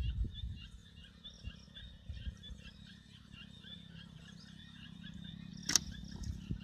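Faint, steady chirping of small outdoor animals, a rapid run of short high calls several a second, with one sharp click near the end.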